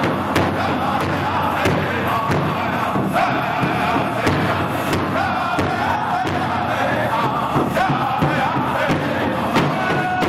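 Powwow drum group performing a men's chicken dance song: several men strike one large shared drum together in a steady beat while singing in unison.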